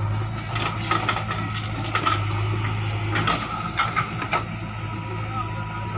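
A JCB 3DX backhoe loader's diesel engine runs steadily alongside an idling tractor, with a thin steady whine. Over this come irregular sharp knocks and clunks from the backhoe working its bucket in the dirt, several in quick succession through the middle of the stretch.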